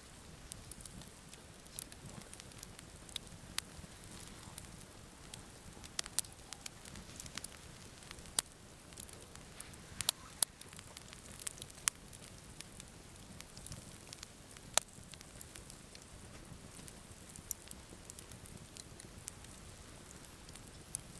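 Split logs burning in a campfire, crackling with sharp, irregular pops over a low steady rustle.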